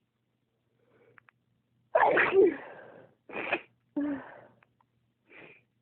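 A woman sneezing in a spell, loud sneezes about two and four seconds in with a sharp short burst between them, then a fainter burst near the end. To the uploader, such spells come on when her toes get cold.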